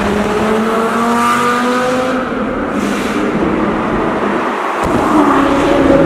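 Maserati Quattroporte with a custom straight-through exhaust accelerating. The engine note climbs steadily for about two seconds, drops, then rises and falls again near the end.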